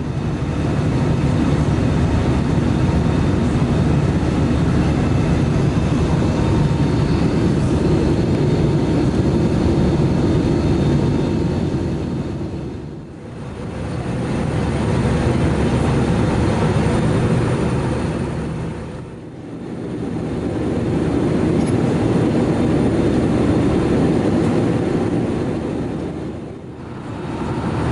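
Steady rushing engine and airflow noise heard inside the cabin of an Airbus A320 in flight. It dips briefly and comes back three times.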